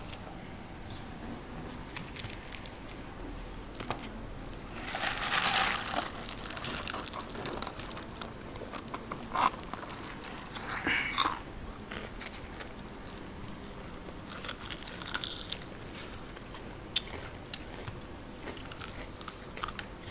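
Close-miked crunching of crispy fried chicken being bitten and torn, with chewing between bites. The loudest crunching comes about five seconds in and again around eleven seconds, and two sharp clicks come near the end.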